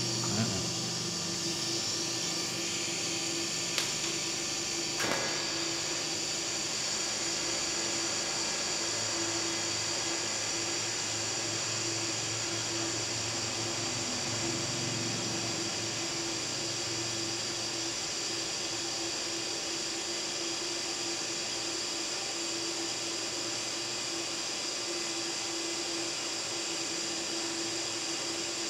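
Lift-start DC TIG welding arc on 3 mm stainless steel plate at 100 amps, powered by a Daesung MIG-120SE inverter welder with argon shielding: a steady hiss with a faint hum, burning as a stable arc. Two faint clicks come about four and five seconds in.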